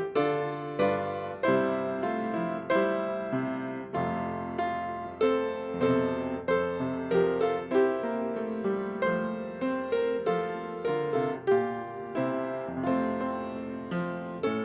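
Solo piano playing a slow, gentle piece: chords and notes struck about once or twice a second, each fading away, over held low notes.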